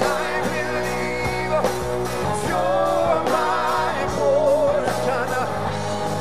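Live Christian rock band: male and female singers holding wavering, vibrato-laden notes over electric guitars, bass and a steady drum beat.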